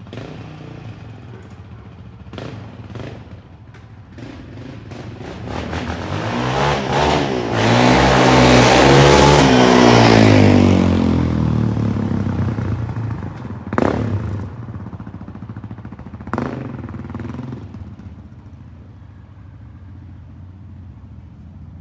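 Yamaha Raptor 700R single-cylinder ATV engine through an HMF Competition slip-on exhaust. It runs low with a few quick throttle blips, grows loud under throttle for several seconds, then eases off. Two more sharp blips come before it settles back to a low running sound.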